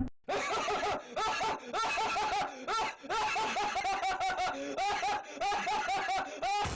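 High-pitched, rapid snickering laughter in short hooked syllables, about three to four a second. It starts and stops abruptly, like an edited-in laugh sound effect.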